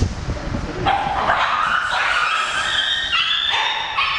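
Caged street-dog puppies whining and yelping in long, high-pitched, overlapping cries, starting about a second in, begging as food bowls are lowered into their cage.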